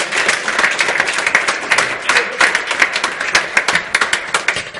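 Audience applauding: dense, fast hand-clapping from many people.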